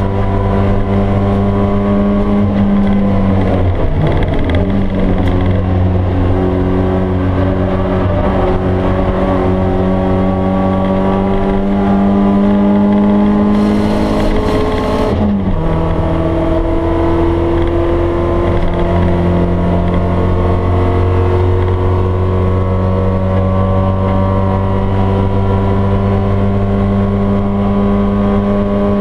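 A BMW E30 318is's stock four-cylinder engine, heard from inside the cabin, running steadily under load. About halfway through there is a gear change: the engine pitch drops suddenly, then slowly climbs again.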